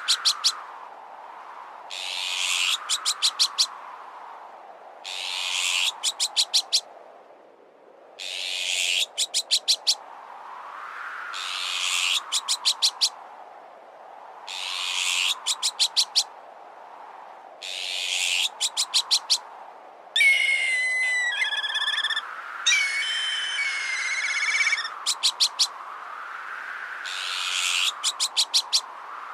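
Looped bird-repellent track: a harsh bird alarm call ending in a quick run of five or six sharp notes, repeated about every three seconds, over a gusting wind sound that swells and fades. About twenty seconds in, a warbling whistled bird call breaks in for a few seconds.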